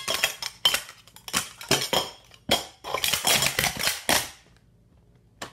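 Stainless steel sport-stacking cups clanking and clattering rapidly as they are stacked up and down in a 3-6-3 run, metal hitting metal, stopping about four seconds in. A single short tap comes near the end.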